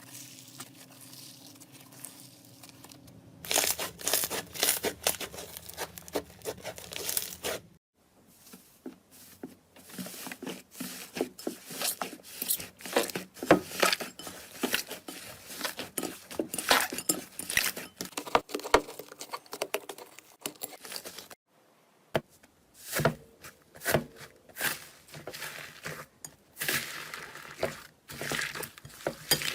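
Slime being squeezed, stretched and poked by hand: dense runs of sticky crackling and popping clicks. The sound breaks off briefly twice, where one clip gives way to the next.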